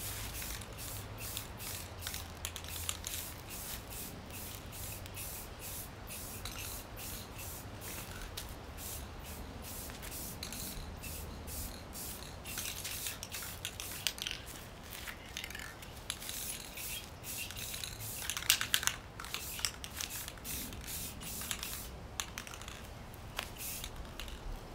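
Aerosol can of clear coat spraying in many short hissing bursts, one quick pass after another, as thin coats go onto a painted bicycle frame; the bursts are loudest about three-quarters of the way through.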